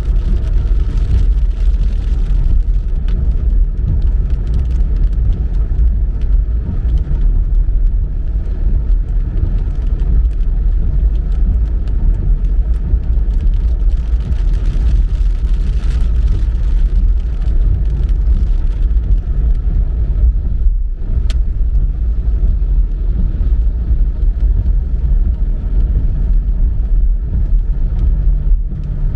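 Car driving through city streets in rain: a steady low rumble of engine and road noise with a hiss of tyres on wet pavement, dipping briefly about two-thirds of the way through.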